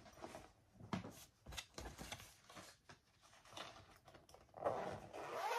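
Rustling, crinkling and light taps of materials being handled, then a short rising whine near the end: a dog whimpering.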